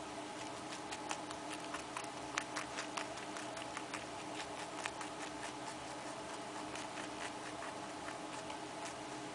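Baby rabbit nibbling a piece of carrot: quick, irregular little crunching clicks, several a second, thickest in the first half, over a steady low hum.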